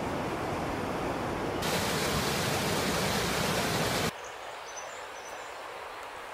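Rushing water spilling over a weir and cascading down a rocky mountain stream, a steady hiss that gets louder and brighter about one and a half seconds in. About four seconds in it cuts off abruptly to a much quieter woodland background.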